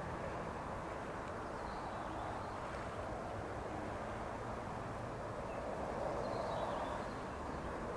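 Steady outdoor background rush that swells slightly about six seconds in, with a few faint high chirps.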